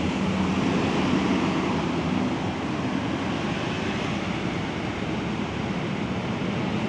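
Road traffic: cars and motorcycles passing close by, a steady rush of tyre and engine noise with a low engine hum that is strongest in the first two seconds.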